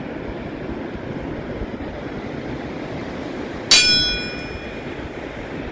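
A single bright bell ding about two-thirds of the way in, ringing out for about a second: a subscribe-button sound effect. Beneath it is the steady wash of surf and wind on the beach.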